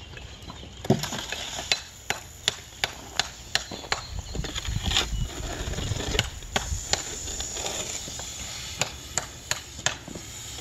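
A hoe scraping and knocking through wet concrete mix in a steel wheelbarrow pan while it is mixed, with many sharp clanks, several in quick runs of about three a second, and a low grinding scrape about four to six seconds in.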